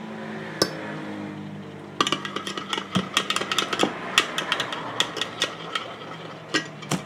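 Metal spoon stirring sweetened condensed milk into green tea in a glass measuring jug, clinking quickly against the glass from about two seconds in, with a few single taps before and after. A steady low hum runs underneath.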